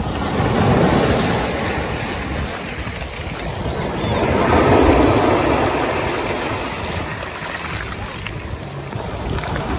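Small waves breaking and washing up over pebbles and sand at the water's edge, swelling twice, about a second in and again around the middle, with wind on the microphone.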